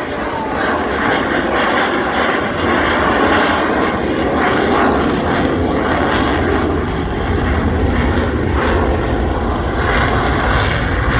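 Airplane engine noise, loud and steady, from an aircraft flying by, its deep rumble building through the second half.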